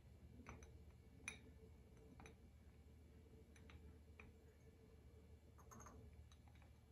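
Faint, scattered light clicks of solid soy-and-paraffin wax balls being set into a glass jar, tapping against the glass and against each other, over a low steady room hum.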